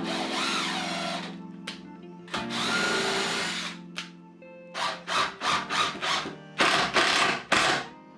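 A hand-held power tool runs in bursts over background music: two runs of about a second each, then a string of short trigger pulses in quick succession near the end.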